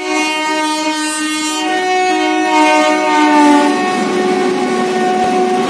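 Electric locomotive's two-tone horn sounding a long blast that dips slightly in pitch as the locomotive passes. About four seconds in it gives way to the rush and rumble of the express train going by at speed.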